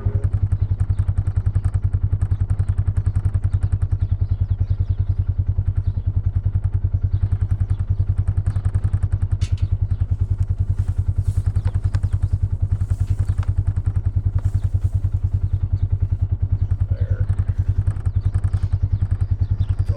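A motor vehicle's engine running at a steady speed close by, with fast even firing pulses, and a few knocks and rattles about halfway through.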